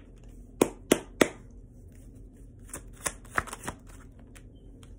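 Tarot deck being shuffled and handled: three sharp card clicks in quick succession about half a second in, then a few softer clicks around three seconds in as a card is drawn and laid on the table.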